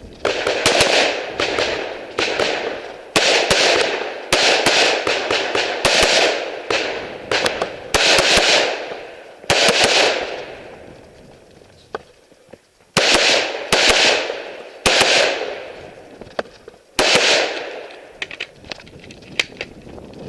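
AR-15 rifle in .223/5.56 fired in quick strings of shots, some in rapid pairs, each crack trailing off in a short echo, with brief pauses between strings and a longer gap about halfway through.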